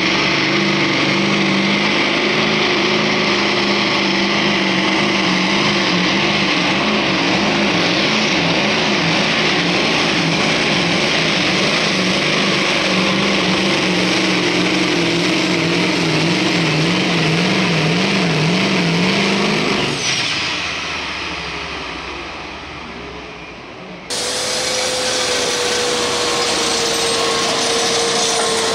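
Turbocharged pro stock diesel pulling truck at full throttle under the load of a pulling sled, its engine note wavering as it hooks and hops. About two-thirds of the way through the engine lets off: the engine note drops away, a falling turbo whistle winds down and the sound fades. A few seconds later an abrupt cut brings back a loud, noisy roar with a steady whine.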